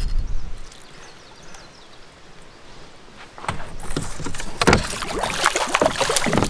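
A hooked fish thrashing and splashing at the water's surface as it is brought in, with many quick, irregular splashes starting about three and a half seconds in after a quiet first half.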